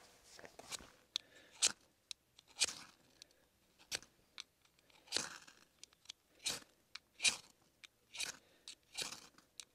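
A ferro rod scraped hard with its metal striker over a tinder bundle, throwing sparks to light a campfire: about a dozen sharp rasping strokes at uneven intervals, roughly one a second.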